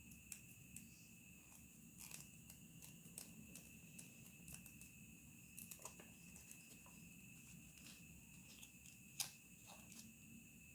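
Faint steady chirring of crickets in the background. Scattered soft clicks and crackles sound over it, with one sharper click about nine seconds in.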